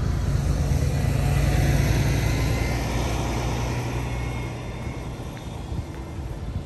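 A road vehicle passing close by: engine and tyre noise that swell to a peak about two seconds in, then fade away after about four seconds.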